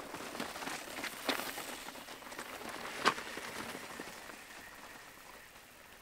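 Mountain bikes rolling over a rocky, leaf-covered trail: tyres crunching and the bikes clattering, with scattered knocks over the rocks and one sharp knock about three seconds in. The sound fades away in the second half.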